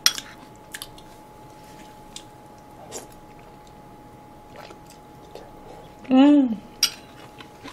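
Quiet eating sounds close to the microphone: scattered soft clicks of a spoon and mouth sounds while chewing, with a short hummed "mm" a little after six seconds. A faint steady hum tone lies underneath.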